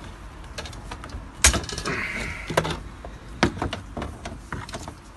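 Pliers snipping and clicking on the thin metal wire of a bird-feeder cage, a string of sharp clicks with the loudest about one and a half seconds in and a brief scrape of metal shortly after.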